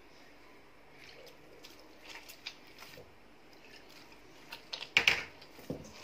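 A hand mixing pizza dough with a little added water in a stainless steel bowl: faint squishing and light ticks, then a louder clatter from the metal bowl about five seconds in.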